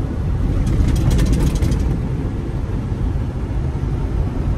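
Semi-truck engine and road noise heard inside the cab while cruising at highway speed: a steady low rumble. A brief patch of quick high ticks comes about a second in.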